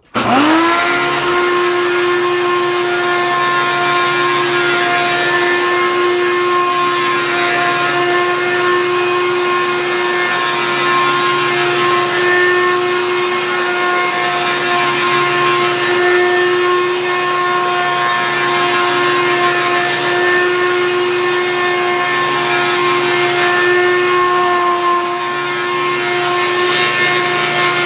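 Hoover Caddy Vac vacuum cleaner switched on, its motor spinning up within the first second to a steady, loud whine and running on, then starting to wind down at the very end. It is really loud because its fan is chipped, though it runs good.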